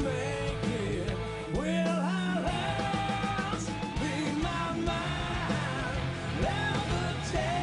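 Rock band playing live: a male lead vocal sings over electric guitars, bass and drums.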